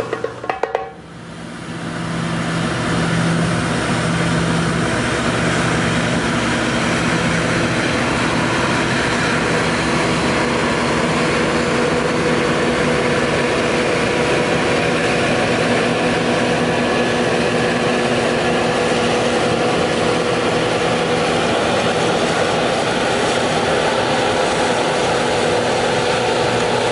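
Combine harvester at work threshing grain: its engine and threshing machinery give a steady drone with a constant hum. The sound dips briefly about a second in, then comes back up.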